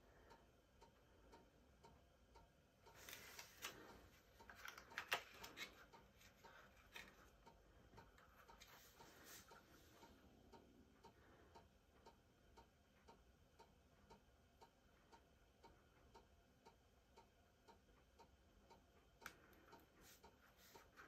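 Near silence with faint, evenly spaced ticking. About three to six seconds in come a few soft rustles and taps as the cardstock is handled.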